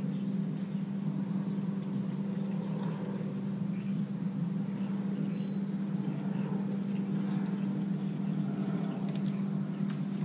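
A boat motor running steadily, an even low hum with no change in pitch.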